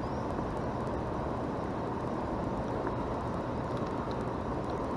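Steady low rushing of river water, even and unbroken.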